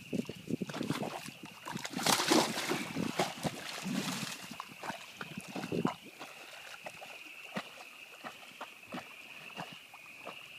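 Black Labrador retriever splashing into a pond and wading out, loudest about two seconds in. After about six seconds the splashing gives way to quieter lapping of water as she swims. A steady high-pitched tone sits beneath.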